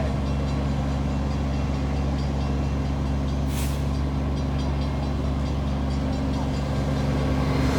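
A large diesel engine idling, a steady low drone made of several fixed tones. A brief hiss comes about three and a half seconds in.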